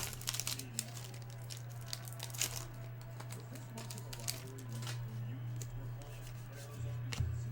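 Foil trading-card pack wrappers crinkling and tearing, with cards being handled, in scattered crackles and snaps, loudest at the very start. A steady low hum runs underneath.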